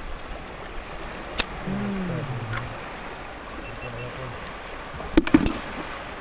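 Shallow seawater washing and trickling, with a brief low voice about two seconds in. A single sharp click comes just before that, and a quick cluster of sharp knocks a little past five seconds in is the loudest moment.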